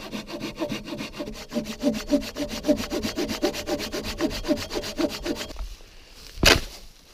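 Folding pruning saw cutting through a dry, barkless dead branch in quick, even back-and-forth strokes; the sawing stops a little before the end, followed by one sharp thump.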